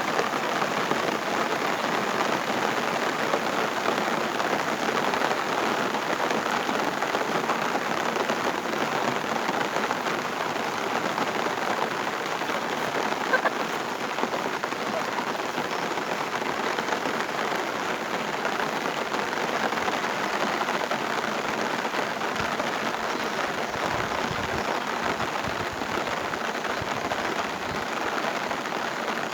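Heavy rain falling steadily, a dense, even hiss of drops, with a single small tap about halfway through.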